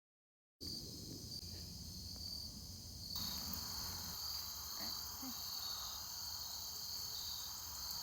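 Crickets chirping in a steady high trill, coming in suddenly after a moment of dead silence, over a faint low rumble.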